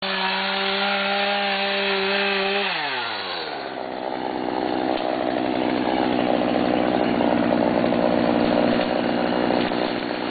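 Chainsaw running, probably cutting into a tree. It holds a steady high-revving whine, then its pitch drops about three seconds in, and it runs on with a rougher, noisier sound.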